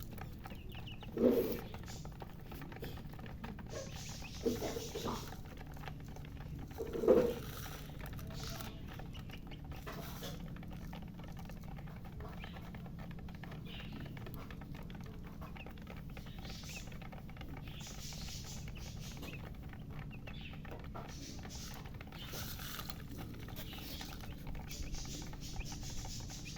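Baby chicks peeping: scattered high, thin squeaks throughout. Three short, louder, lower-pitched sounds stand out in the first seven seconds. A steady low hum runs underneath.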